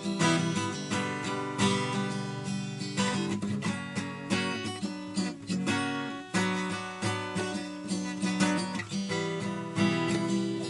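Acoustic guitar strumming chords in a steady rhythm, with no singing.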